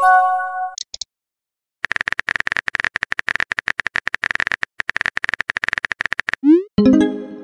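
Chat-app sound effects. A short multi-note chime sounds as a message pops up, then a long run of rapid keyboard-typing clicks. Near the end a quick rising swoosh is followed by another brief chime.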